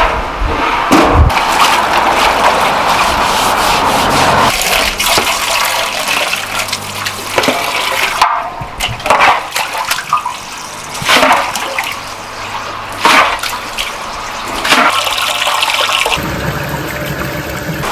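Water splashing and gushing, with scattered knocks and clatter throughout; the sound changes abruptly a few times.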